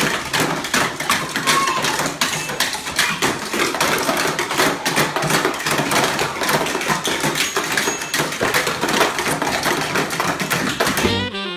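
A dense, irregular clatter of many small taps and knocks from a group of children playing with sticks and plastic toys, with no clear rhythm.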